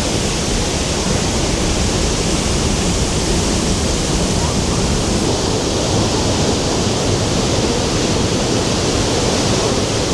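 Pailón del Diablo, a powerful 80-metre waterfall, heard at very close range: a loud, steady rush of falling water.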